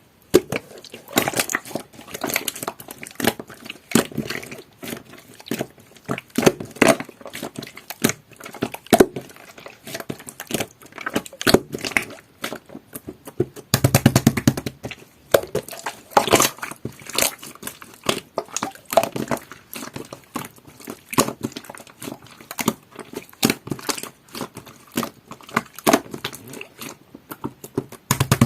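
Jelly-textured slime being squeezed and pressed by hand, making a dense, irregular run of wet clicks and pops, with a short low buzzing squelch about halfway through.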